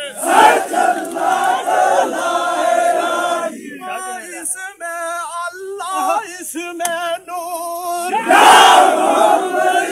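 A crowd of men chanting and shouting together. There is a loud massed cry about half a second in and again near the end, with fewer, single voices holding sung notes in between.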